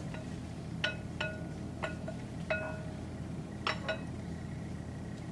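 A mixing bowl clinking six times as a container or utensil taps against it during the pouring in of the yeast mixture: short, sharp clinks, each ringing briefly at the same pitch, the last two close together near the end.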